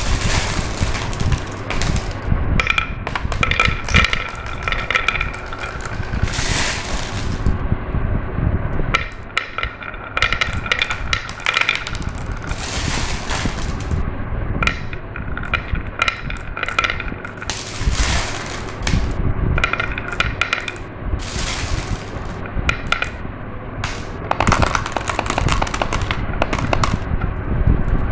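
Glass marbles rolling and clattering down a marble-run track, with dense clicking and short stretches of ringing rattles as they knock against the track and each other.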